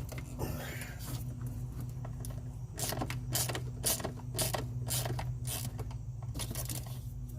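Hand tools and metal fasteners clinking, knocking and scraping in short irregular clicks while bolts are fitted, over a steady low hum.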